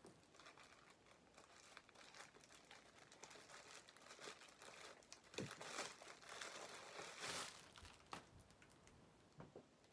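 Faint crinkling and rustling of plastic packaging as a parcel is cut open with scissors and the clothes inside are pulled out, with the loudest crinkles about five to seven and a half seconds in.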